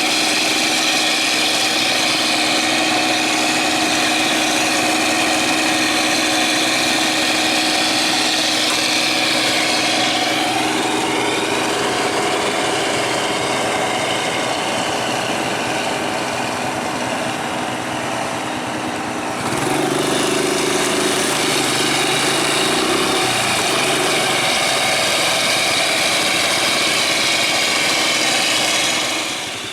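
Heavy machinery diesel engines running steadily. About ten seconds in the engine note falls as the revs drop. Near twenty seconds a louder, lower engine note comes in, and the sound drops away just before the end.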